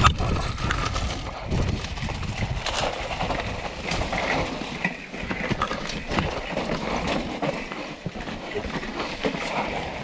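Mountain bike riding down a rough dirt singletrack: tyres rolling over dirt and roots, with the bike rattling and knocking over bumps in an irregular patter.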